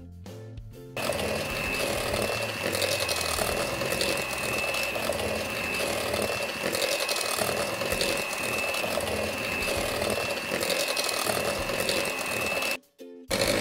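Electric hand mixer running, its beaters churning flour into thick cake batter in a plastic bowl, with a steady high whine over the motor noise. It starts about a second in, after a moment of guitar music, and cuts out briefly near the end before starting again.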